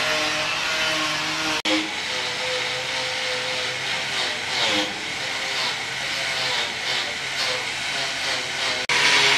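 Handheld electric angle grinder with a wire cup brush running against the rusty steel edge of a truck's cargo bed, a steady motor hum with a hiss of scouring, its pitch dipping briefly as it is pressed in. The sound cuts out abruptly twice.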